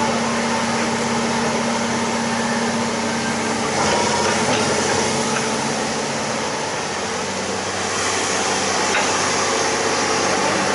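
Excavator's diesel engine running steadily, its tone changing about four seconds in.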